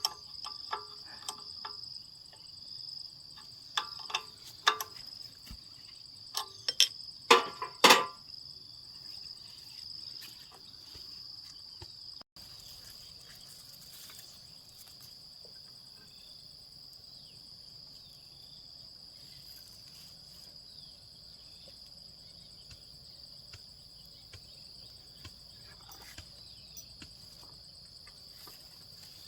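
Crickets chirping steadily in a high, continuous trill. Over it come several sharp knocks and clatters in the first eight seconds, the loudest a short clatter about seven to eight seconds in. No engine is heard running.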